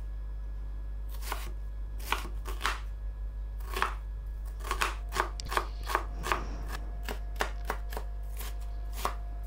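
Kitchen knife slicing and dicing an onion on a wooden cutting board: separate knocks of the blade hitting the board, starting about a second in and coming faster toward the end.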